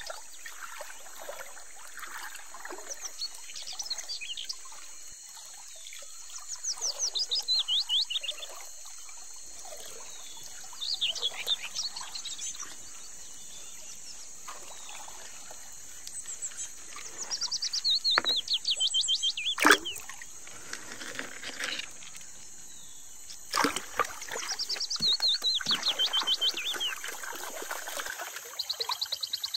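Water sloshing and splashing as a wooden gold pan is swirled and dipped in a shallow river, with a few sharp splashes about two-thirds of the way through. Over it a bird sings the same quick run of falling notes again and again, every few seconds.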